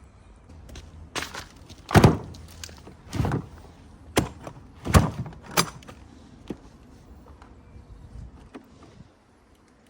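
Bricks knocking and thudding as they are taken down and handled: about seven irregular sharp knocks, the loudest about two seconds in.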